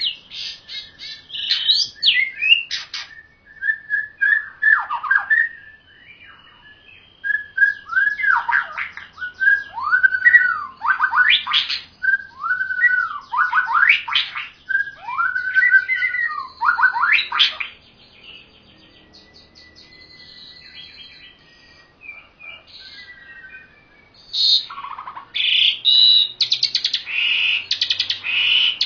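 Songbirds singing, a Javan pied starling and a white-rumped shama: repeated whistled phrases with sharp down-sweeping notes, a quieter few seconds past the middle, then a louder, denser run of notes near the end.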